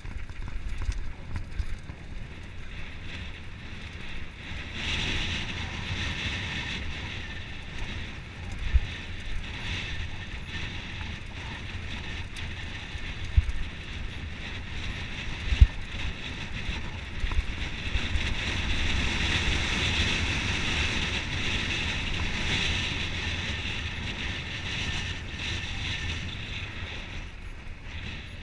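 Wind buffeting the microphone of a camera riding on a mountain bike, over the rumble and rattle of the bike rolling fast down a dirt trail. Three sharp knocks in the middle as the bike jolts over bumps.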